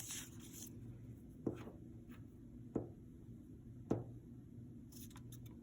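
Faint handling of paper and a glue stick on a tabletop, with three soft taps a little over a second apart, as a paper strip is glued down onto a sheet.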